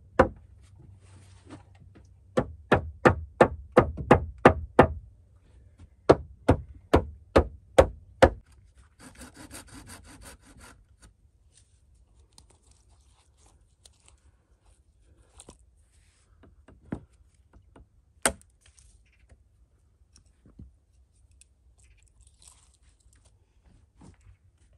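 Hammer driving nails into wooden boards: two quick runs of sharp blows, about three a second, followed by a rasping scrape. After that come only scattered light knocks and one sharp tap as planks are handled.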